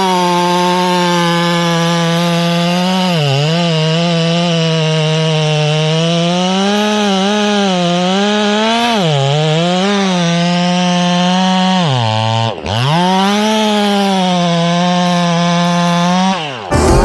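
Dolmar PS-9010 two-stroke chainsaw running at full throttle through wood, its pitch dipping again and again as the chain takes load. The engine note drops sharply for a moment about twelve seconds in, then comes back up, and the sound cuts off just before the end.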